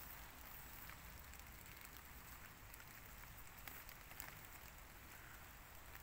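Faint outdoor ambience: a soft hiss and low rumble with a few scattered small ticks and crackles.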